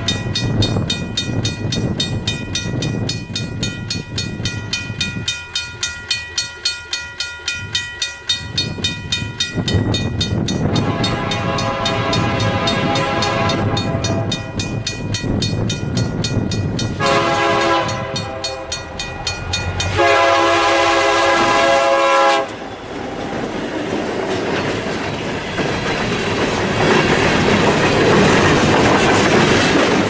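Canadian National freight train passing close by, led by an EMD SD60 diesel locomotive. Near the start a bell rings with a fast, even beat. The locomotive's air horn then sounds three times: one long blast about a third of the way in, and two more just after the middle as it passes. After that the engine and the rolling wheels of the freight cars make a loud, rising rush.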